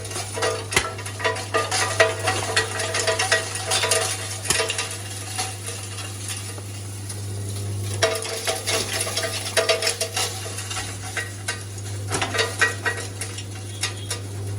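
Rock salt grinder machine running with a steady electric motor hum, salt granules rattling and clicking against its metal parts. The rattling thins out in the middle and comes on busier again twice.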